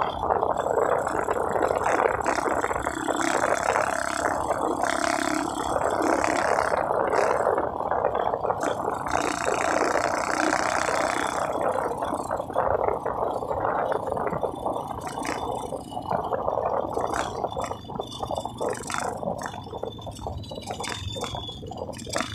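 A motorcycle riding along a road with wind buffeting the microphone and some rattle from the bike, a rough rushing noise that eases off a little over the last few seconds.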